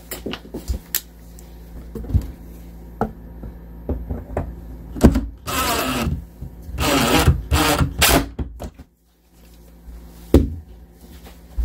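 Power drill driving a screw into a wooden cabinet door, run in two short bursts of about a second each near the middle, with scattered clicks and knocks of handling before and after.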